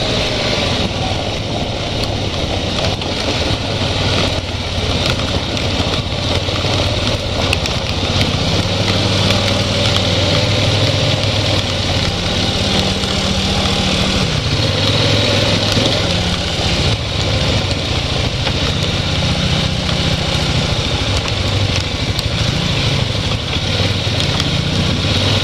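ATV engine running, its pitch rising and falling again and again as the throttle is opened and let off, over steady rumble and noise.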